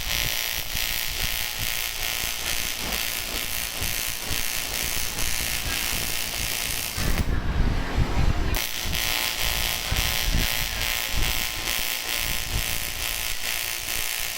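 TIG welding arc on aluminium, a steady hiss, building up metal on a shaft. The arc breaks off for about a second and a half midway, leaving a few low knocks, then strikes again.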